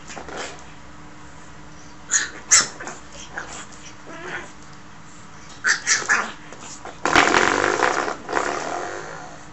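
A pug puppy flicking a spring doorstop with its paws and mouth: the spring twangs with a springy boing, a few short ones and a louder, longer one about seven seconds in that fades out. The puppy's small growls go along with it.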